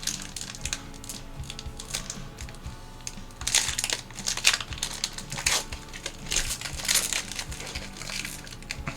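Foil booster pack wrapper crinkling as it is handled and torn open, in irregular rustles that are thickest in the middle, over quiet background music.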